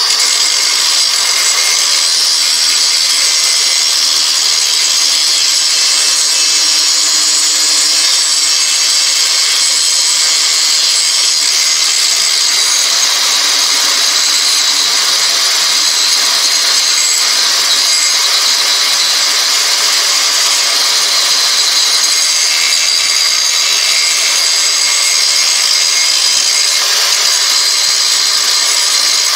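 Handheld angle grinder running steadily with its disc grinding into the high-carbon steel of an old metalworking file, cutting out the rough shape of a knife blade. The grinding noise is loud, high-pitched and even, with no pauses.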